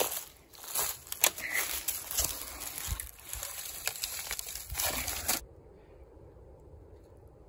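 Dry leaf litter and twigs crackling and crinkling, with many sharp snaps, as they are moved and handled close to the microphone. The sound stops abruptly about five seconds in, leaving a faint outdoor hush.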